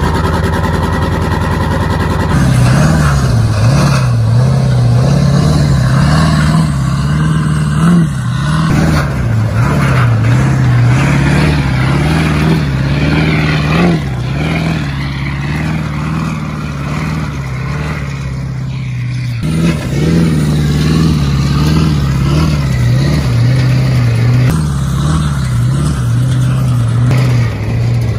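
Pickup truck engine revving and running hard under load, its pitch wavering up and down every second or two.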